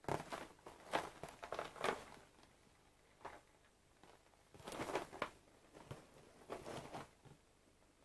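Cardboard cereal box handled and turned over in the hands: short bursts of scraping and tapping, clustered in the first two seconds, again around five seconds in and once more near seven seconds.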